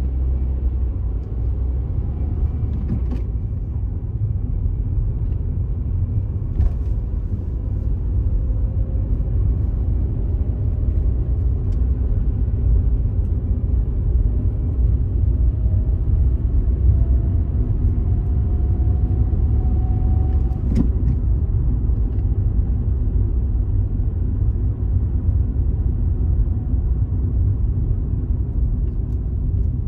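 Steady low rumble of a car driving on city streets, with a faint whine that rises slowly in pitch through the middle of the stretch.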